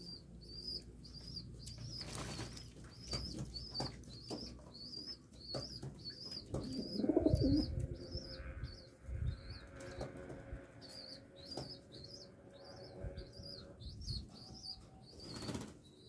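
Fancy pigeons bathing in a shallow tray of water, wings flapping and splashing in short flurries, with a louder flurry about seven seconds in. A high chirp repeats about twice a second behind them.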